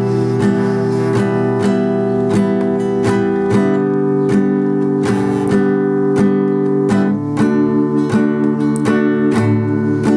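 Acoustic guitar intro, strummed chords repeating at a steady pulse, with no singing yet.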